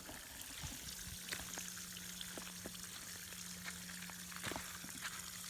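Water spraying from small drilled holes in a PVC pipe frame fed by a garden hose: a steady fine hiss with scattered small drips and splashes.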